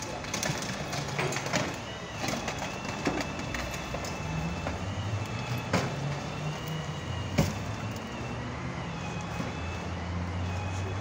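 A vehicle engine running low and steady, swelling a little near the end, with street traffic and a faint thin high tone behind it. A few short sharp clicks and knocks sound over it.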